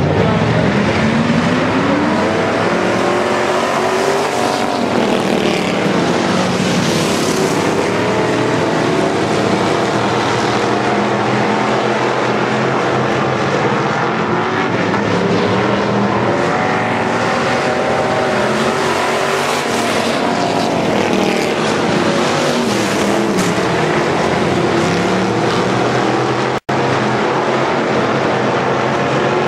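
Engines of a pack of hobby stock race cars running hard around a dirt oval, several engines at once whose pitch rises and falls again and again. The sound cuts out for a split second near the end.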